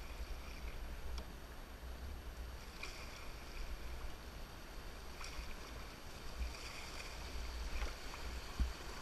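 Shallow river riffle rushing and splashing around a loaded canoe as it runs through, over a steady low rumble, with a few sharp knocks, the loudest near the end.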